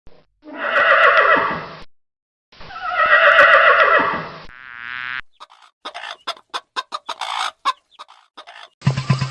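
Horse whinnying twice, each a loud call of about two seconds that falls in pitch at the end, followed by a quick run of short animal calls.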